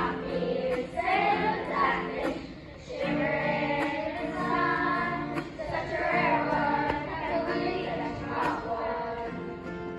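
A group of children singing together, accompanied by an acoustic guitar.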